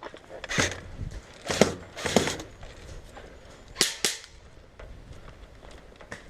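Airsoft guns firing scattered single shots: sharp cracks and pops in the first half, ending with two quick snaps about four seconds in.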